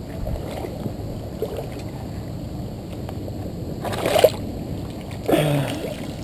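A hooked largemouth bass splashing at the surface as it is grabbed by hand from the water, the loudest splash about four seconds in, over a steady low sloshing of water. A short grunt follows shortly after.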